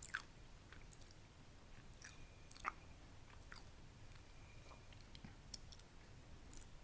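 Close-miked chewing of a crispy baked egg wrap: quiet, scattered soft crunches and mouth clicks, with a sharper crunch about two and a half seconds in.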